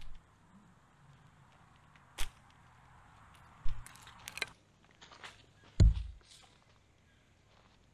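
Dry sticks being handled in leaf litter: a few scattered sharp snaps and knocks of dead wood, the loudest a dull thump about six seconds in.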